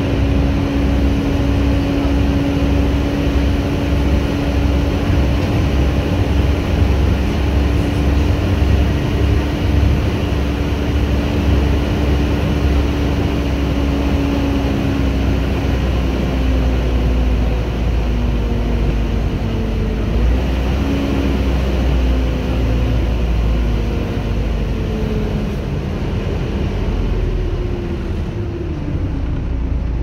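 Volvo B7TL double-decker bus under way, heard on board: its six-cylinder diesel running with a low rumble and the steady whine that gives these buses their 'hoover' nickname. The whine holds a level pitch for about half the time, then falls and wavers through the second half.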